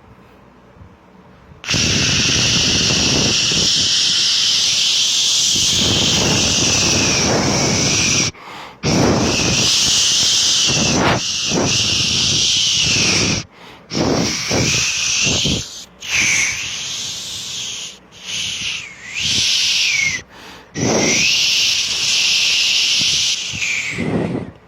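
Loud hiss of blowing air in several long blasts, with short breaks between them.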